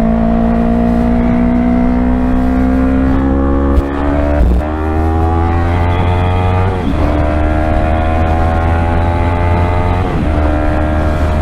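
Yamaha R3's 321 cc parallel-twin engine through an M4 Street Slayer exhaust, accelerating up through the gears: the pitch climbs steadily and drops sharply at three upshifts, about four, seven and ten seconds in. Heavy wind noise on the microphone underneath.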